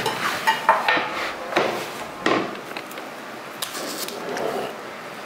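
Ceramic mixing bowl knocking and scraping on a wooden tabletop as bread dough is scraped out, with several sharp knocks in the first couple of seconds, then softer sounds of the dough being pressed and pushed on the floured table.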